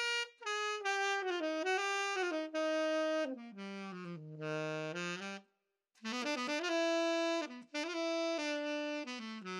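Solo tenor saxophone playing a short phrase of held notes on a Roy Benson TS-101 student tenor, ending in low notes; after a short pause just past the halfway point, a similar phrase played on a Cannonball Stone Series professional tenor, with the same mouthpiece on both horns.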